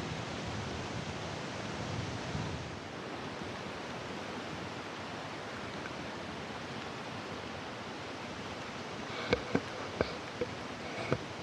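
Steady rushing roar of a large, high-volume waterfall, with a few sharp knocks near the end.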